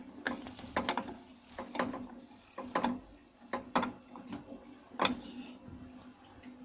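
Kitchen utensils and cookware being handled, giving scattered light clicks and knocks, the loudest about five seconds in.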